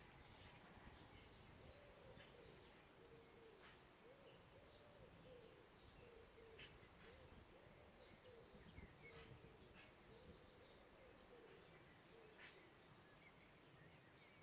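Faint forest birdsong: a low, repeated hooting bird call runs through most of it, while small songbirds add scattered high chirps and, twice, a quick high trill.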